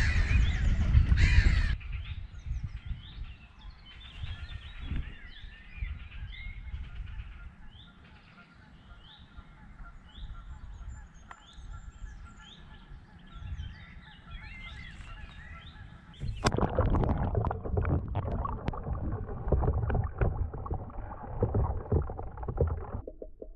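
Geese honking, a string of short repeated calls over a quiet background. About two-thirds of the way through, a louder rushing noise with scattered knocks cuts in suddenly.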